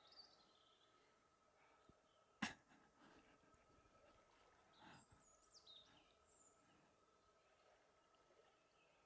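Near silence: faint outdoor creek-side ambience with a few faint, high, falling bird chirps and one sharp click about two and a half seconds in.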